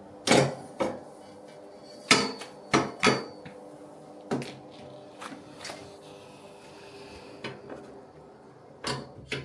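Metal clunks and rattles of a generator's folding handle and its fittings being handled and fitted to the frame, about eight separate knocks over a faint steady hum.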